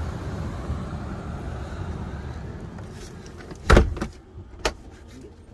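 Steady wind and surf noise, then a camper van door shut with one loud thud about three and a half seconds in, followed by a lighter latch click about a second later.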